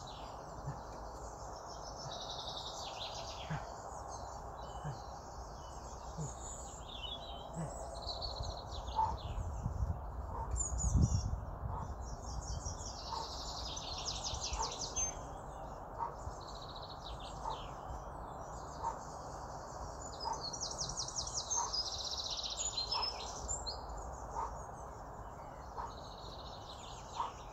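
Songbirds singing outdoors, a mix of warbling phrases and fast trills, over steady low background noise, with a soft note repeating about every second and a half. A brief low rumble about ten seconds in is the loudest moment.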